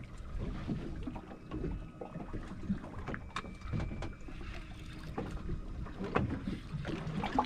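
Wind on the microphone and water sloshing against a fishing boat's hull, with a few light clicks and knocks.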